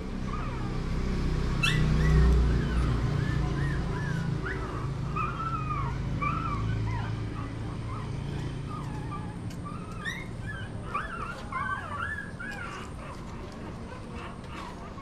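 Shih Tzu puppy, about three weeks old, whimpering and yipping in a long run of short, high squeaky whines while being hand-fed raw ground chicken. A low rumble about two seconds in is the loudest moment.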